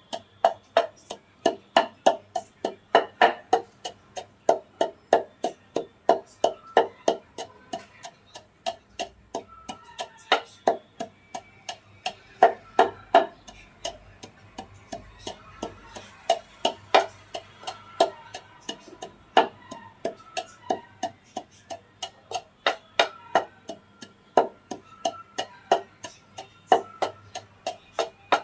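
Wooden pestle pounding naphthalene balls to powder in a mortar: a steady run of sharp knocks, about three a second.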